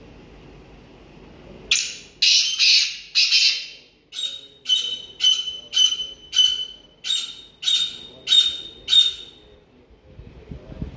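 Male black francolin calling: a run of about thirteen harsh notes at roughly two a second, starting about two seconds in. The first four are loud and rasping; the rest are shorter, with a clearer ringing tone.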